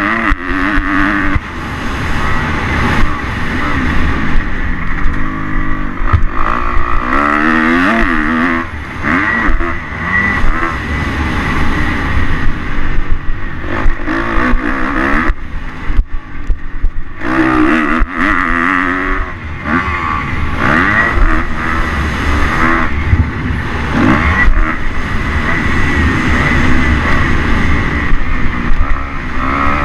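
Kawasaki KX250 motocross bike engine heard from onboard, revving up and down repeatedly as it is ridden hard around a dirt track, the throttle briefly closing a little past the middle. Low wind rumble on the microphone runs under it.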